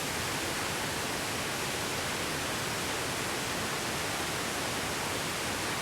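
Steady roar of falling water from a small alpine waterfall, the Gartelfall: an even rushing noise with no change in level.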